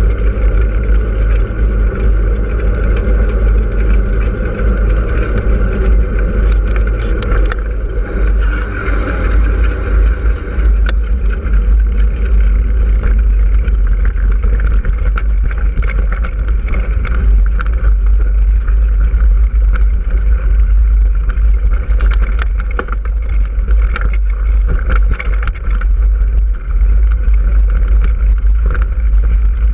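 Heavy wind buffeting on the microphone of a moving action camera, over the rolling noise of tyres. Partway through, the surface turns from tarmac to a dirt-and-gravel track, and the tyres start crackling over loose stones with many small clicks.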